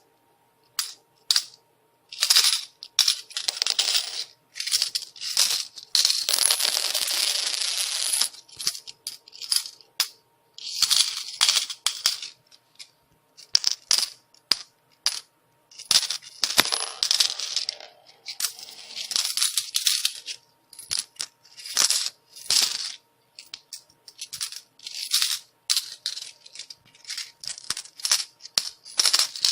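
Coins falling and clattering, a run of separate metallic clinks broken by longer jingling cascades of many coins, the longest about six to eight seconds in.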